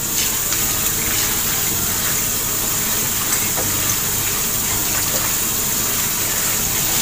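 Kitchen tap running steadily onto chopped coriander in a stainless steel colander set in a steel sink, while a hand stirs and rubs the leaves to rinse them. A few faint light ticks sound over the water.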